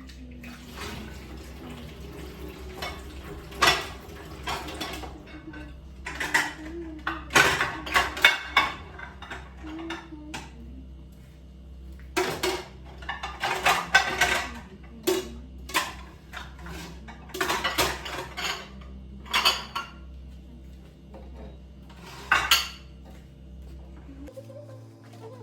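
Dishes, pots and cutlery clinking and clattering as they are handled, in irregular bunches of sharp knocks, over a steady low hum.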